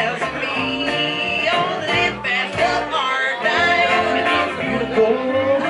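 Live country band playing a honky-tonk song on electric guitar, upright double bass and acoustic guitar.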